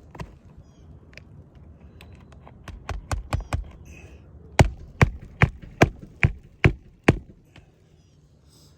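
Hammer knocking on the roof during shingle work. Four lighter taps come about three seconds in, then seven harder, evenly spaced blows at about two and a half a second.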